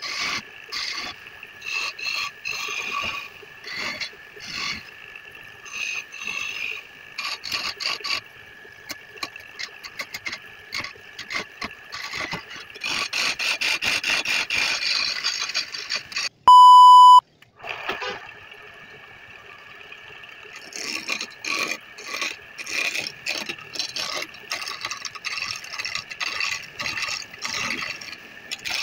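A hand-held turning tool cutting a spinning wooden spindle on a wood lathe, making irregular scraping bursts over a steady high tone. A loud electronic beep, under a second long, cuts in about two-thirds of the way through, followed by a couple of quieter seconds with little cutting.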